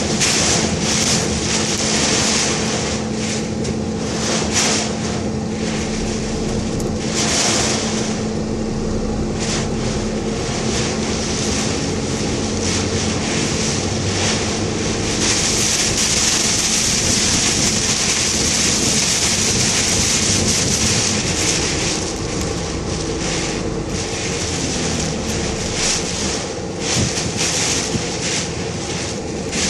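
A car driving through typhoon wind and rain: steady engine and road noise, with a loud hiss of wind and rain on the car that swells and eases in gusts.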